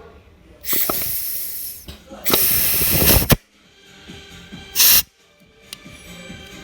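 Compressed air hissing from a blow gun in three bursts, the first two about a second long each and the third brief, blown into the passages of a 01P automatic transmission to check that the freshly assembled clutch packs apply.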